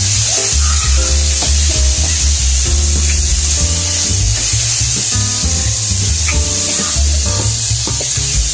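Carrot and potato pieces sizzling in a pan as they are sautéed and stirred with a spatula, a steady high hiss. Background music with a strong bass line plays under it.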